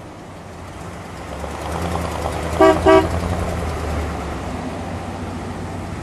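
1957 Ford Thunderbird's 312 V8 engine running as the car drives past, its rumble swelling and then slowly fading. Two short car-horn toots sound close together about two and a half seconds in.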